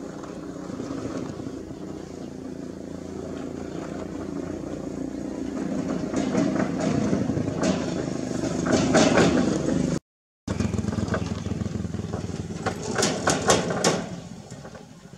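A motor engine runs steadily and grows louder toward the middle, with clusters of short, sharp sounds over it in the middle and near the end. The sound cuts out completely for a moment about ten seconds in.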